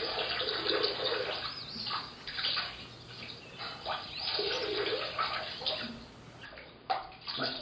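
Water running and splashing with a gurgling trickle, dying away after about six seconds, then a couple of short clicks.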